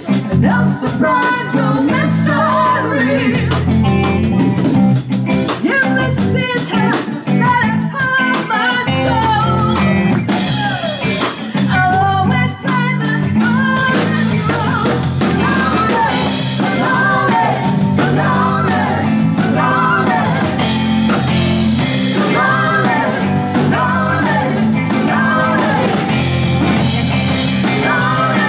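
Live band playing a song: a woman singing lead over electric guitar, electric bass and a drum kit.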